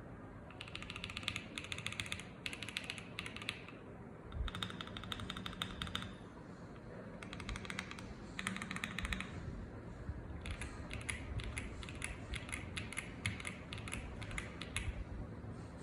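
Typing on a Monsgeek M1W mechanical keyboard: runs of rapid keystroke clacks in about six bursts, with short pauses between them.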